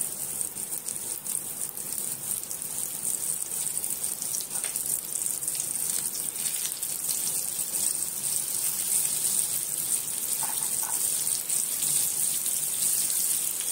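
Coated surmai (kingfish) steaks sizzling in hot oil on a flat iron griddle (tawa): a steady high hiss with fine crackling spits as fresh pieces are laid into the oil.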